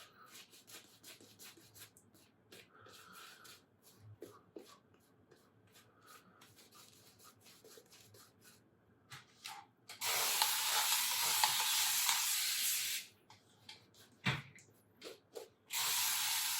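Shaving brush rubbing and swirling in shaving soap, a soft scratchy sound with small clicks. About two-thirds of the way in, water runs steadily from a tap for about three seconds, and again briefly near the end, adding water to the lather.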